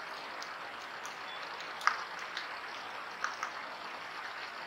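Tropical forest ambience, an even hiss, with scattered short clicks and rustles from a young agouti foraging in dry leaf litter; the sharpest click comes about two seconds in.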